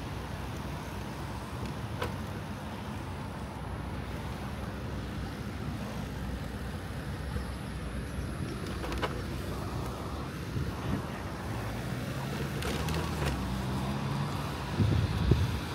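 Road traffic: car engines and tyre noise going by, with a low engine hum coming up near the end and a couple of louder low thumps.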